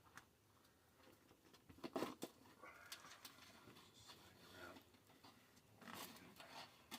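Near silence, with a couple of faint sharp knocks about two seconds in.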